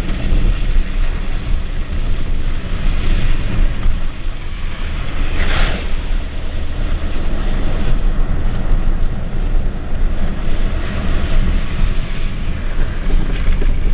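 Pickup truck driving on a cleared road, heard from inside the cab: steady engine and tyre noise with a low rumble, and a brief louder swish about five and a half seconds in.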